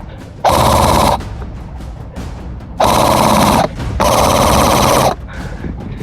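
Three bursts of simulated automatic gunfire, the first about half a second in and the last two close together. Each lasts about a second, at an even loudness, and cuts on and off abruptly, like a game sound effect.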